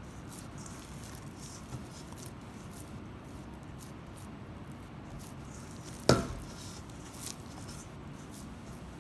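Bare hands squishing and kneading a raw ground-turkey meatball mixture in a stainless steel bowl, with soft wet squelches and small crackles. A single loud knock about six seconds in.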